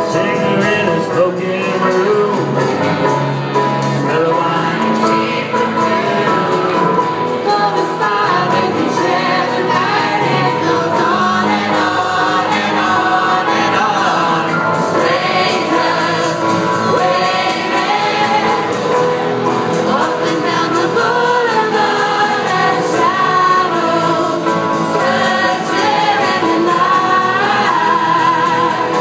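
Live band playing a song, with several voices singing together over strummed acoustic guitars.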